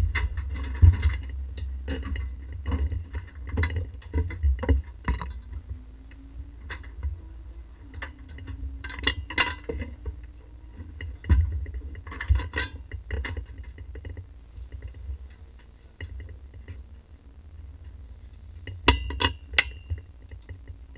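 A race car's engine is switched off in the pit lane, cutting out right at the start. Irregular clicks, knocks and taps on the car follow, including glass being cleaned on the windscreen, with louder clusters of clicks about nine, twelve and nineteen seconds in.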